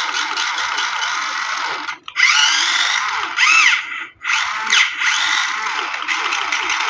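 Small electric motor and gears of a toy remote-control car whirring, rising and falling in pitch as the throttle is worked, and cutting out briefly twice.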